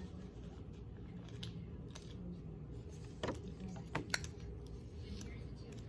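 A few light clicks and taps from handling small plastic toy pieces and peeling stickers, sharpest about three to four seconds in, over a steady low hum.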